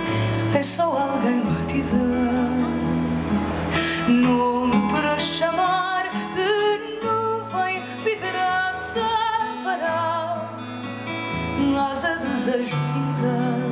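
A woman singing a slow song in Portuguese with vibrato, over acoustic guitar and long held low bass notes.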